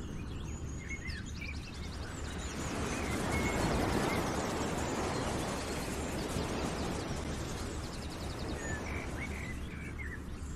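Outdoor nature ambience: small birds chirping and trilling over a steady rushing noise that swells a few seconds in.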